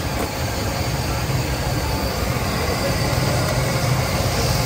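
Steady low rumble under an even noisy hiss, with faint voices in the background.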